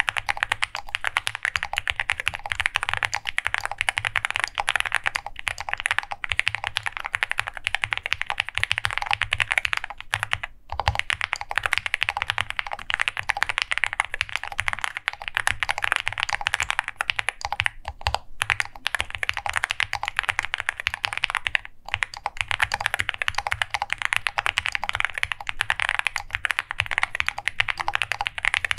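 OwLab Spring custom mechanical keyboard with lubed Alpaca linear switches, an FR4 plate and Cherry-profile PBT keycaps, typed on at a fast, steady pace. The typing stops briefly about ten, eighteen and twenty-two seconds in.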